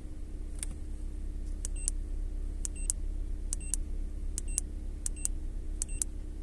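Handheld OBD2 scan tool (Ancel FX2000) giving short, high key-press beeps as its buttons are pushed to step through menus, about one a second and mostly in quick pairs. A car engine idles steadily underneath with a low hum.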